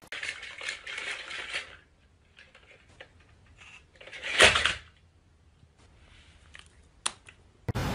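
Battery-powered walking toy dinosaur clattering and clicking for the first couple of seconds, then scattered faint clicks. About halfway through comes one short, loud rasping burst.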